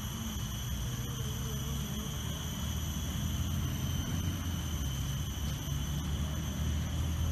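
Outdoor background noise: a steady low rumble under a steady high-pitched hum, with no distinct events.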